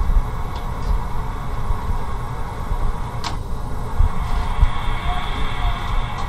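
Universal testing machine pulling a tray's sealed lid in a seal-strength peel test: a steady low hum, with one sharp click about three seconds in and a faint high whine from about four seconds in.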